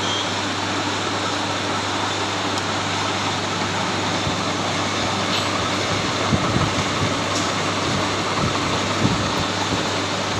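Machine drilling holes in a differential ring gear, running with a steady whirring hiss over a constant low hum, with a few low knocks partway through.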